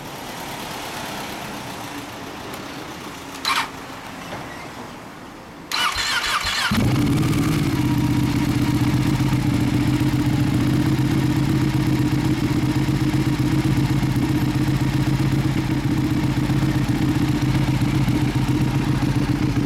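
A 2016 Ducati 1299 Panigale S's 1285 cc V-twin is cranked on the starter about six seconds in. It catches within a second and settles into a steady idle. A short sharp noise comes a couple of seconds before the start.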